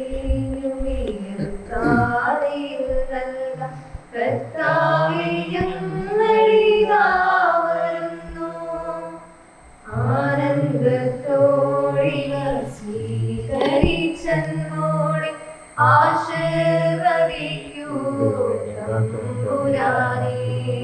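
Church choir singing the offertory hymn in Malayalam, in phrases with short breaths between them, over sustained low notes.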